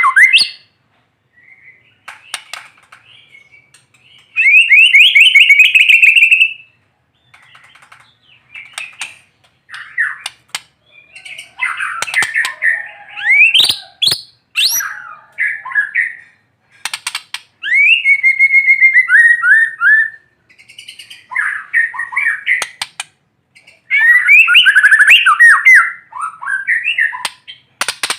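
White-rumped shama (murai batu) singing in loud, varied phrases, each a second or two long, with short pauses between. The phrases mix rapid trills, sweeping whistles and sharp clicking notes.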